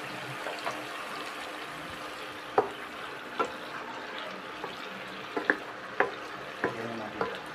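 Teriyaki sauce bubbling and sizzling in a non-stick frying pan as a wooden spatula stirs the chicken, with several sharp knocks of the spatula against the pan in the second half.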